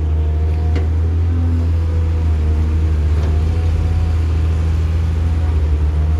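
Heavy diesel construction machinery running steadily with a low drone, with two faint knocks about a second and three seconds in.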